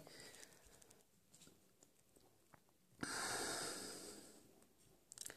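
A person's long breath out close to the microphone about three seconds in, lasting over a second and fading, with a shorter breath near the end. Before it come a few faint clicks of the handheld radio's rubber keypad buttons being pressed.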